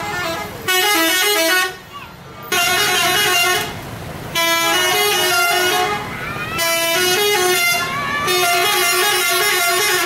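Bus "telolet" horns: multi-tone musical air horns played as quick stepped melodies. There are several loud bursts, the first three about a second long with short gaps between them, and a longer run over the second half.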